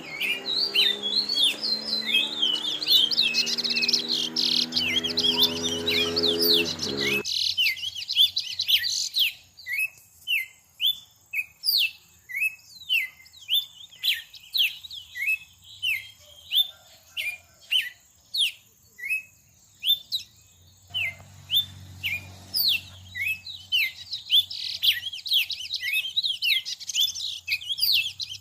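Small bird chirping over and over: short sweeping chirps, a dense flurry at first, then spaced out to about one or two a second. A low steady hum underneath cuts off abruptly about seven seconds in and comes back faintly near the end.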